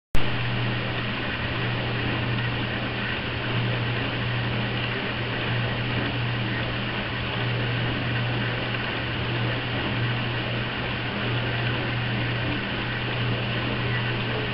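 Steady whirring hum and hiss of an electric pedestal fan running, unchanging throughout; it begins abruptly with a click as the sound comes in.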